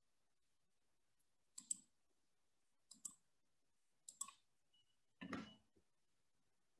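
Four faint computer mouse clicks, spaced about a second apart, each a quick press-and-release pair, over near silence.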